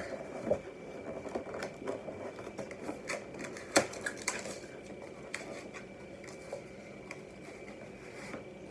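Cardboard box being opened by hand: an irregular run of small clicks, taps and rustles as the flaps are pried and handled, with one sharper snap near the middle.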